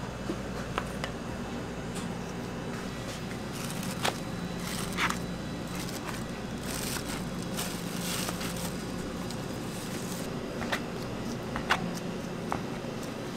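Bread dough being divided by hand: a plastic sheet crackling as it is pulled back off the dough in the middle stretch, with scattered light taps of dough pieces and a plastic scraper on the scale and granite counter. A steady machine hum runs underneath.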